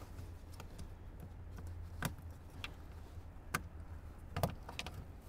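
A few faint plastic clicks and knocks as the factory OBD2 connector's tabs are squeezed and the connector is worked out of the dash panel, over a steady low hum.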